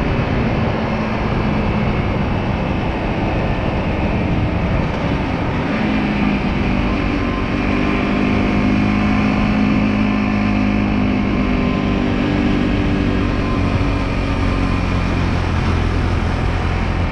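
A 125cc motorcycle engine running under way, mixed with steady wind and road noise. The engine note shifts in pitch a few times as the speed changes.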